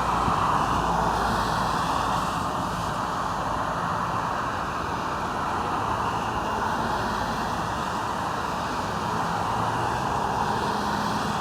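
Steady background noise with no distinct events and no thunder.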